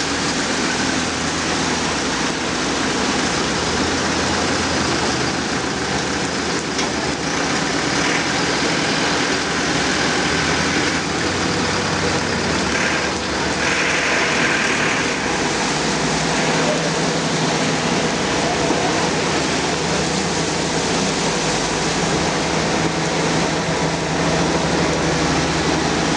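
Truck and minibus engines running as the vehicles drive through a flooded street, over a steady hiss of rain and water sprayed up by their tyres.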